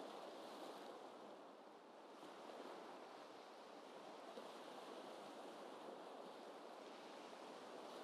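Gentle ocean waves washing, faint and steady, easing briefly just before two seconds in and swelling again just after.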